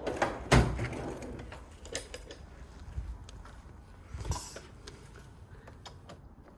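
Scattered knocks and clicks of work on a car's negative battery terminal clamp as it is loosened and worked off the post, the sharpest knock about half a second in.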